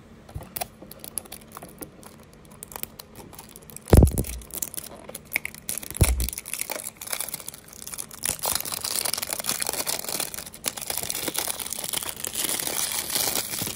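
Old, crispy cellophane wrap on a small cardboard window box being peeled off by hand, crinkling and tearing, densest in the second half. Two dull thumps of the box being handled about four and six seconds in, the first the loudest sound.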